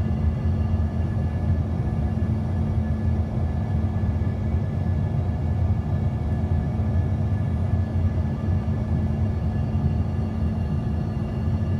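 Airliner coming in to land: a steady low rumble of engines and rushing air, with a faint steady whine on top.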